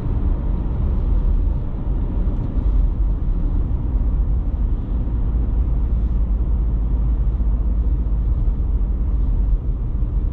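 A vehicle driving: a steady low rumble of engine and road noise.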